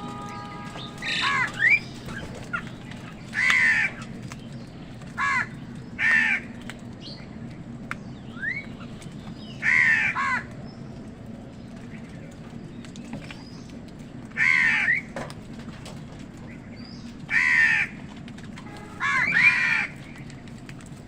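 Crows cawing: harsh caws, singly and in short pairs, about nine over twenty seconds. A few thin rising chirps from smaller birds come between them.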